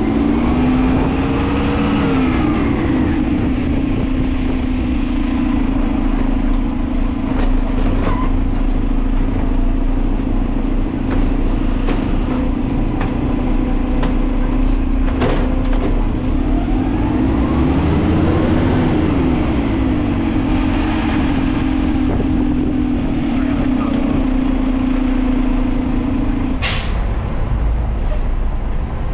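Side-load garbage truck's automated arm being worked, its hydraulics and engine running with a steady drone that rises and falls in pitch twice as the arm cycles a cart. Near the end a short sharp air-brake hiss, and the drone stops.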